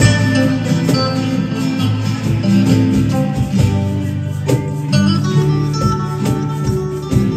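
Live band music: an electric guitar and an acoustic-electric guitar playing over a low bass line, with light hand percussion keeping a steady beat.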